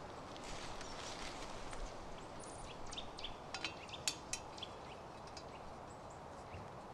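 A few light clinks and clicks as a black metal camping kettle's wire handle is worked onto a wooden stick, the two sharpest about four seconds in, over faint bird chirps.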